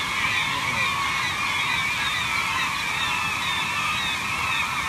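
A large flock of gulls calling all at once: a dense, unbroken din of overlapping cries.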